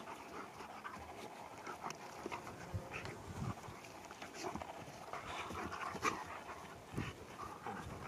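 Dogs panting as they play-wrestle, with a few soft scuffles and knocks.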